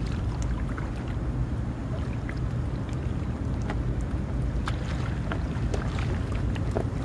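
Steady wind noise on the microphone, with water lapping and light splashing along the shoreline as scattered small ticks.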